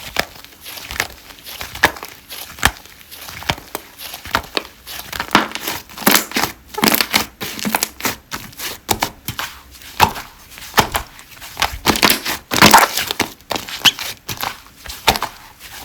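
Slime being squished and pressed, giving a dense run of quick crackling pops and squelches that come thicker and louder in the second half.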